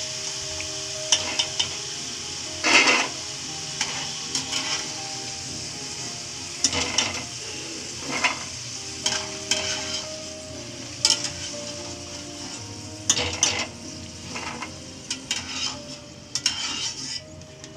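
Potato cubes sizzling in hot oil in an aluminium kadai, with a steady hiss, while a wire-mesh skimmer scrapes and clinks against the pan every second or two as the browned potatoes are lifted out.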